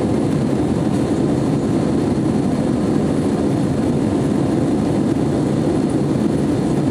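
Steady engine and airflow noise heard inside a jet airliner's cabin as it climbs after takeoff, an even, unbroken drone.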